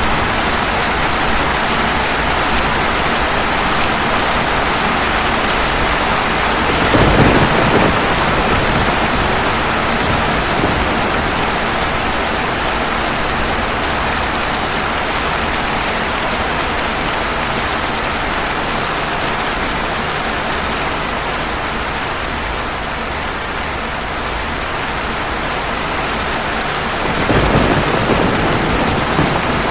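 Steady heavy rain falling, with a roll of thunder about a quarter of the way in and another near the end.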